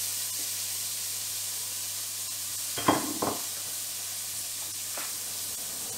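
Chopped leek sizzling steadily in a hot frying pan. Two sharp knocks come close together about three seconds in.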